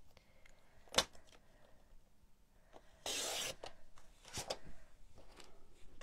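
Sliding-blade paper trimmer cutting a sheet of cardstock: a sharp click about a second in, then a brief rasping swipe of the blade through the card about three seconds in, and another click a second later.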